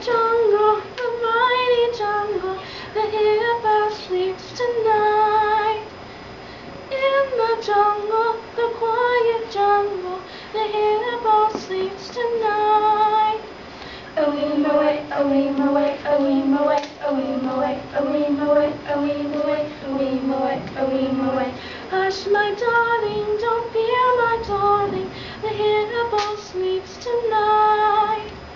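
Singing: a melody sung in short phrases with brief pauses. About halfway through, a lower held line comes in under it for several seconds.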